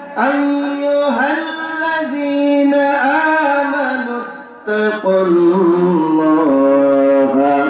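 A man's voice chanting melodically into a microphone in long held notes that bend slowly up and down, with a short break about four and a half seconds in, after which lower notes join.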